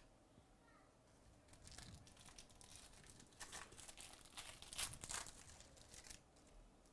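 A trading card pack's plastic wrapper being torn open and crinkled as the cards are pulled out. The faint crinkling starts about a second and a half in and is loudest near five seconds.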